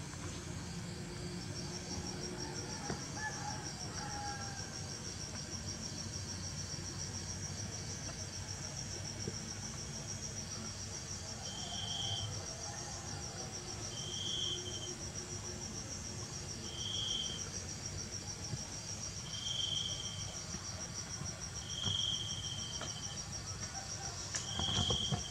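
Steady, high-pitched insect trill, cricket-like, running without a break. From about halfway through, a second, lower short chirp repeats about every two and a half seconds, six times.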